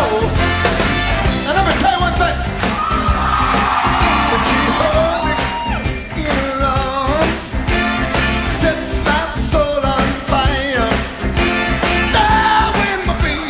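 A live rock band playing a song with a drum kit, sung by a male lead vocalist with female backing singers.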